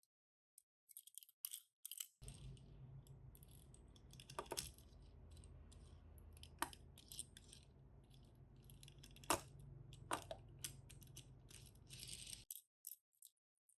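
Small toy cars and their packaging being handled: faint clicks and light rattles, with a few sharper clicks. A faint steady low hum starts about two seconds in and stops suddenly near the end.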